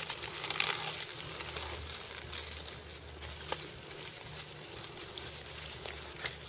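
Dry leaf litter rustling and crackling as a large goanna crawls through it: a steady run of small crackles with a few sharper snaps.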